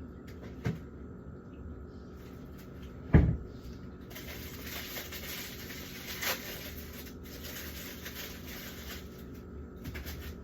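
Kitchen handling sounds: a light knock, then a loud thump like a cupboard or fridge door closing about three seconds in, followed by several seconds of steady rustling hiss with small clicks.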